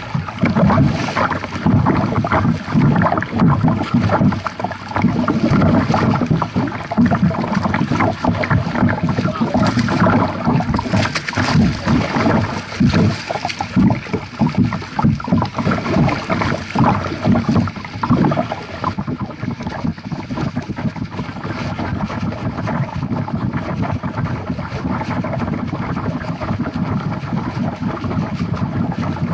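Lake water splashing and rushing against a moving kayak's hull right at a waterline-mounted microphone, in uneven surges that settle into a steadier rush for the last ten seconds or so.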